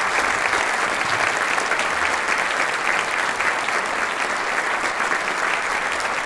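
A large conference audience applauding steadily, the sustained clapping of many hands that welcomes a keynote speaker to the podium.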